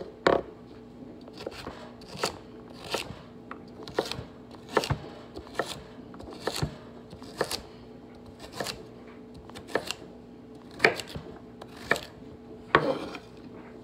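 Chef's knife chopping carrots on a wooden cutting board: sharp knocks of the blade hitting the board, roughly one or two a second at an uneven pace.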